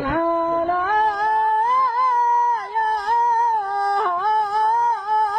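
A man singing unaccompanied in Arabic folk style, drawing out long held notes with small ornamental turns and dips as the opening of a song, before the lyrics begin.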